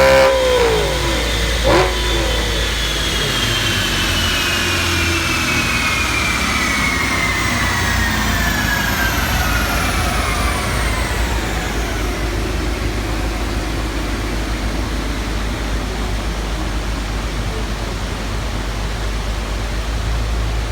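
2008 Audi RS4's 4.2-litre V8 coming off the throttle at the top of a dyno pull: the revs fall sharply in the first second, with a single sharp pop about two seconds in. A whine then falls slowly in pitch over about twelve seconds as the dyno rollers and drivetrain coast down, over a steady low rumble.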